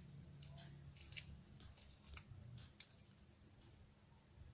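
Faint, scattered crackling clicks of a raw prawn's shell being peeled off by hand, over a low steady hum.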